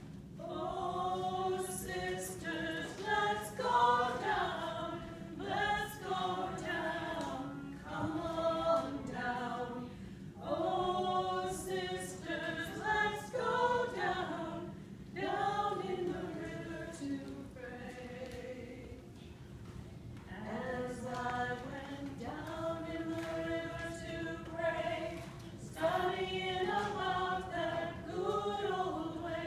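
Church choir of men's and women's voices singing an anthem in phrases, softening briefly a little past the middle.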